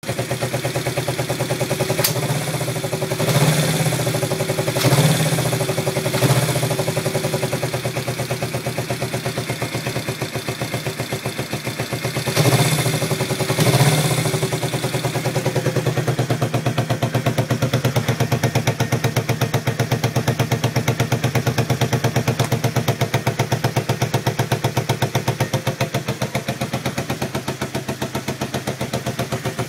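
Yamaha XS400 parallel-twin engine idling roughly with a misfiring beat, after an attempt to balance its carburettors. In the first half it picks up briefly in speed and loudness several times, then settles to a steady idle.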